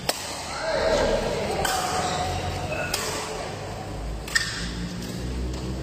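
Badminton rackets striking a shuttlecock in a rally: four sharp hits, about a second and a half apart.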